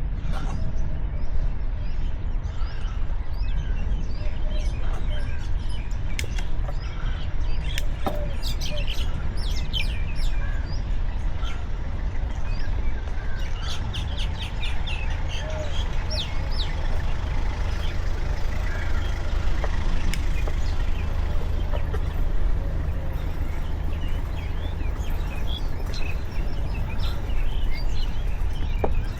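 Steady low rumble of wind on the microphone, with birds chirping over it. The chirps come in quick runs, thickest from about 8 to 16 seconds in.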